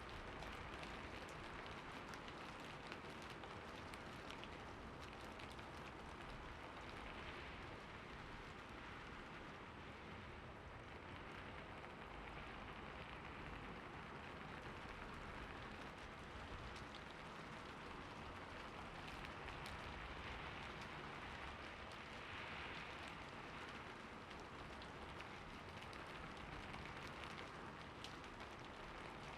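Steady rain falling on a roof, a continuous hiss with many small drop taps scattered through it.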